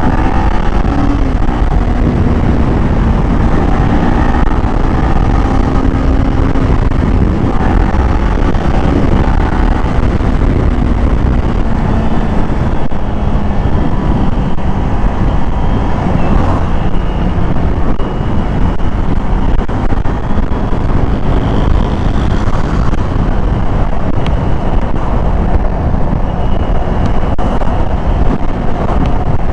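Kawasaki Z400 motorcycle's parallel-twin engine running through its stock muffler at riding speed, heard from the rider's seat. The engine note rises and falls with the throttle in the first several seconds, then holds under a steady rush of wind on the microphone.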